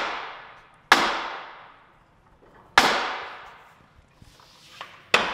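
Four sharp, loud bangs, each ringing away over about a second: the lever of a Famco arbor press is yanked hard so its ram slams down onto a hickory axe handle. The first comes right at the start, the next about a second in, another about three seconds in, and the last near the end.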